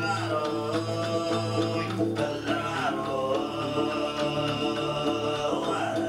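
Tuvan throat singing: a steady low drone voice with sustained high overtones and sliding sung phrases above it, over rhythmically picked strings.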